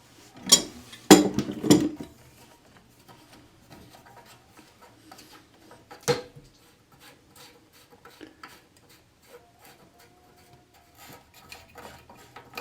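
Channel-lock pliers gripping and turning the nut that holds a Fluidmaster fill valve to the toilet tank: clicks and scraping, loudest in the first two seconds, one more sharp knock about six seconds in, then faint ticking and rubbing.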